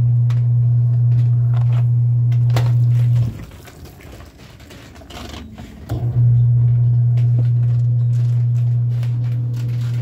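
LG 16 kg top-load washing machine's motor humming steadily as the drum spins, in two stretches: the first stops a little after three seconds, the second starts about six seconds in. Between them a few light knocks and rustles of clothes being handled in the drum.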